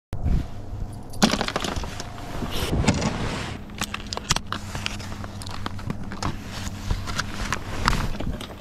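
Close handling noise from fishing tackle: a plastic bag of soft-plastic baits crinkling and rustling, with scattered clicks and taps. The noise is busiest in the first few seconds and again near the end.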